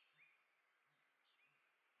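Faint, sparse house finch chirps: one short call just after the start and another about a second and a half in, against quiet outdoor background noise.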